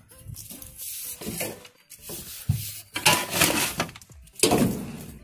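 Scraping and rustling of hay and litter being cleared from in front of a wooden rabbit hutch, in several irregular strokes, the loudest about three seconds in and again about four and a half seconds in.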